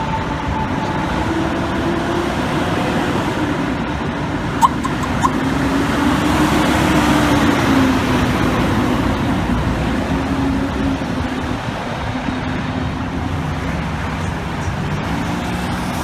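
City street traffic: vehicles passing with steady engine and tyre noise, and a low engine tone that rises and falls. There are two short sharp blips about four and a half and five seconds in.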